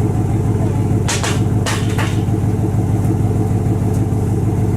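Pickup truck engine idling steadily, with two short hissing noises about one and two seconds in.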